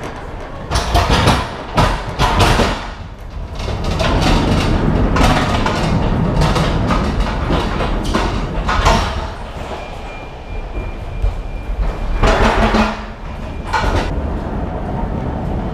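Hand pallet truck rattling and clattering as it is rolled over the trailer's metal-railed floor, with bangs and knocks as wooden crates are moved, over a steady low engine hum from the forklift at the trailer's rear.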